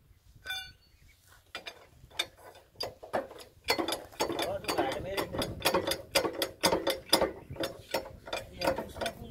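Ratcheting clicks from a screw jack's handle being worked under a heavy truck, as the truck is jacked to deal with a broken leaf spring. A few scattered clicks at first, then a fast, even run of clicks, several a second, louder from about four seconds in.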